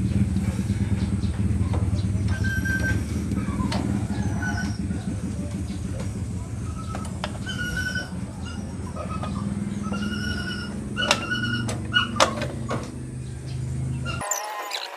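Clinks and knocks of hand tools on a motorcycle's rear axle and brake plate as the wheel is fitted, over a steady low drone and short high chirps. The sound cuts off abruptly near the end.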